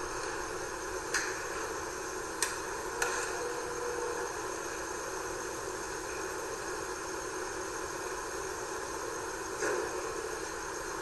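A few short, sharp knocks or clicks, four in all, over a steady hiss.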